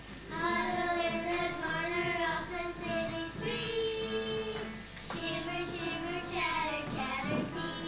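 A group of young children singing a song together, starting about half a second in, with short breaks between phrases.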